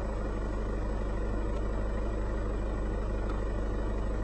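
A vehicle engine running steadily, with an even low drone.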